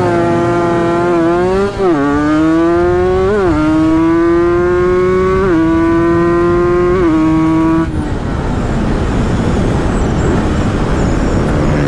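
Kawasaki Ninja 150 two-stroke single under hard acceleration. The engine note climbs steadily through each gear and drops sharply at each of about four upshifts. About eight seconds in the throttle closes and the engine note stops, leaving wind and road noise.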